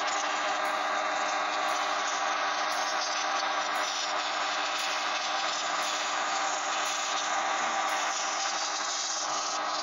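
Compressed air from a compressor's blow gun jetting steadily into a chainsaw's oil pump housing to blast out dirt and old oil, a constant hiss over a steady low hum.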